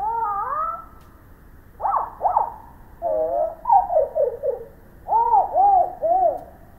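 Black-capped vireo song played back slowed down and lowered in pitch: a run of varied whistled notes sweeping up and down, some with two voices overlapping. It ends with four arched notes in a row.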